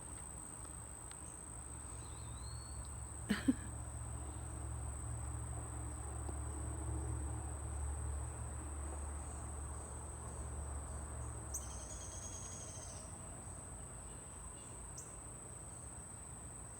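Steady high-pitched insect chorus, typical of crickets, running without a break, with a short bird call near the start and another about two thirds through. A low rumble swells in the first half and fades out a little past the middle.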